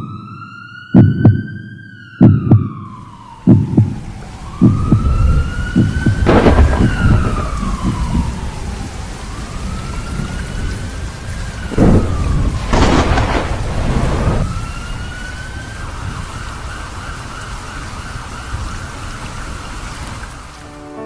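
Layered sound effects: heavy low thumps about once a second for the first few seconds, under a siren wailing slowly up and down. Steady rain comes in after about three seconds, with a thunder crack about six seconds in and another, louder, around thirteen seconds. Near the end the siren settles into one steady tone.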